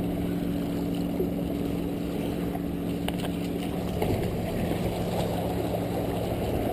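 Wind on the microphone and water washing against shoreline rocks, with a steady low hum that stops about four seconds in. A few faint clicks come about three seconds in.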